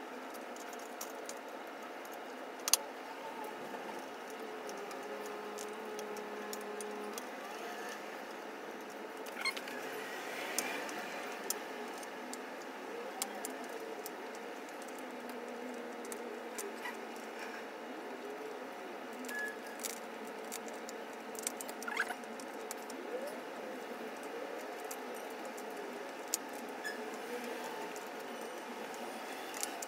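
Scattered light clicks and small metallic rattles of hand tools and hardware fastening an e-bike's front fender, over a steady low hum. One sharp click a little under three seconds in is the loudest.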